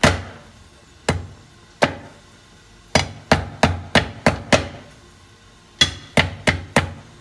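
Heavy cleaver chopping ginger on a round wooden chopping board: sharp single chops at first, then two quick runs of about six chops each, one about three seconds in and one near the end.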